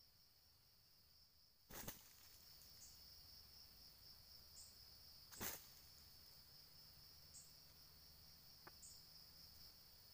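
Faint, steady, high-pitched insect drone, with two brief sharp knocks about two and five and a half seconds in and a few short, high chirps in between.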